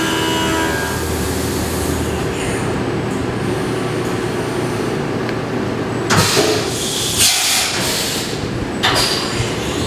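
CNC vertical milling machine running under flood coolant while machining an aluminum part. A steady cutting whine stops about a second in, leaving an even spray-and-machine noise, with sudden loud bursts about six seconds in and again near the end.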